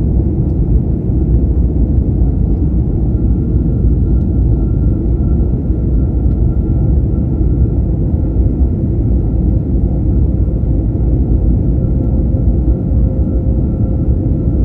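Airliner cabin noise in flight: the steady rumble of the jet engines and rushing air, with a faint steady hum riding on top.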